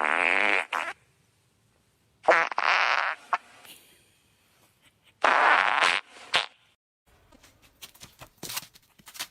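Three loud fart sounds, each just under a second long and spaced about two and a half seconds apart, followed by a few faint clicks.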